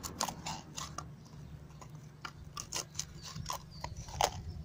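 Cardboard toilet-roll tube being folded by a gloved hand, its cut flaps pressed in to close the end: irregular crinkling and clicking of the card.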